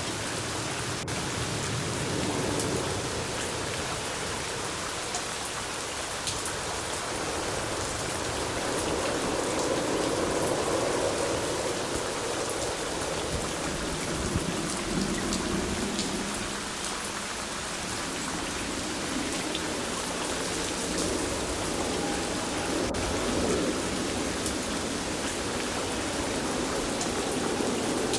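Steady rain falling, with single drops heard as small scattered ticks over the even hiss of the downpour.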